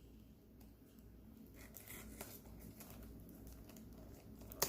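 Faint rustling and light handling noises, with a couple of soft ticks, as small perfume packaging is handled.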